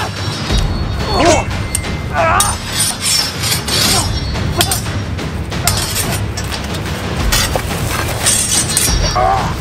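Steel longswords clashing again and again, each strike sharp and ringing, with short grunts and cries of effort from the fighters over a low music bed.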